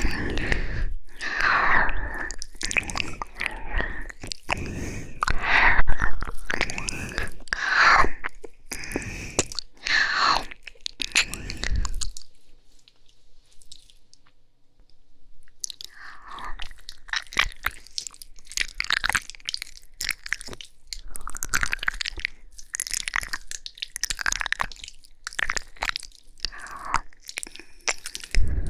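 ASMR mouth sounds: slow, wet licking and kissing smacks, irregular and continuous, with a pause of a few seconds around the middle.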